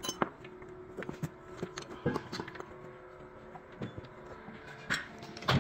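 Scattered metallic clinks and knocks of hand tools and Isuzu diesel engine parts being handled during a teardown, with a louder clank about five seconds in.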